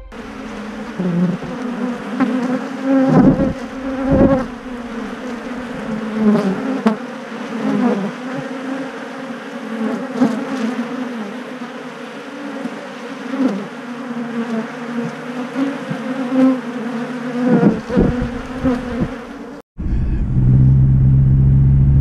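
A mass of honeybees buzzing at a hive, close to the microphone, with single bees swelling loud as they fly past every few seconds. About twenty seconds in it cuts to the steady low rumble of a pickup truck's running engine heard inside the cab.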